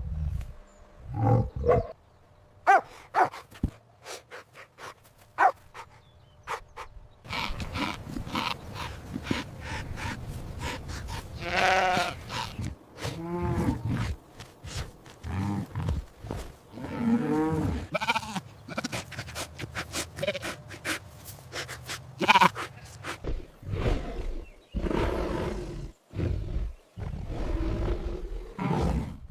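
Sheep or goats bleating: many calls with a quavering, wavering pitch, some overlapping, from about seven seconds in. Sharp clicks and knocks come before the calls and keep turning up among them.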